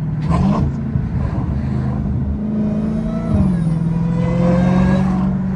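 Supercharged 6.2-litre HEMI V8 of a Dodge Hellcat running on the road, with a sharp loud exhaust crack about half a second in. The engine note drops a step about three seconds in, then holds steady.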